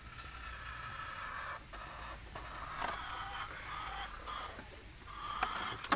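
Chickens clucking in the background over a low steady hum, with a sharp click near the end.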